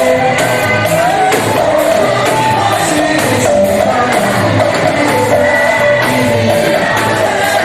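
Church choir singing a praise song with band accompaniment, over a steady percussion beat.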